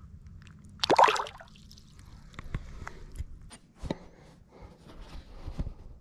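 Water splashing and dripping: a loud splash about a second in, then scattered small clicks and knocks.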